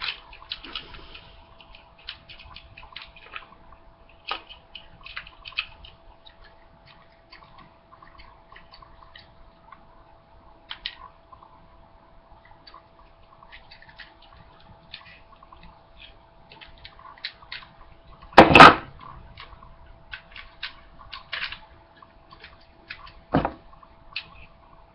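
Light clicks and rattles of an airsoft pistol being handled, then two sharp cracks, the first much louder, about five seconds apart: airsoft pistol shots at the sunglasses being tested. A faint steady hum runs underneath.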